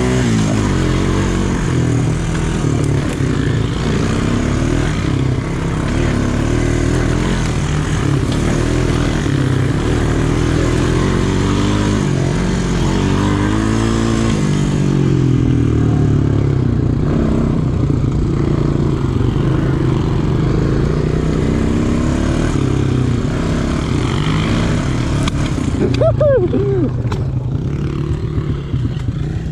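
ATV engine running on a trail ride, its pitch rising and falling again and again as the throttle is worked. There is a brief sharp rev up and back down a few seconds before the end.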